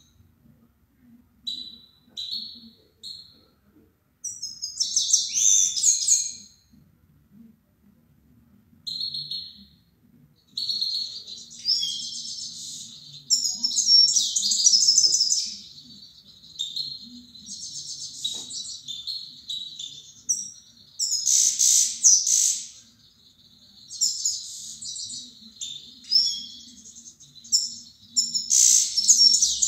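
Caged songbird singing in rapid, high twittering phrases. Short bursts come first, then a lull of a few seconds, then near-continuous song from about ten seconds in, with louder flourishes scattered through it.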